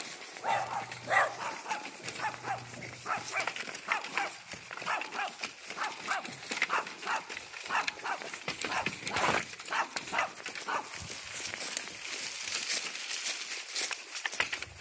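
Footsteps crunching and rustling through dry fallen leaves at a steady walking pace, about two to three steps a second.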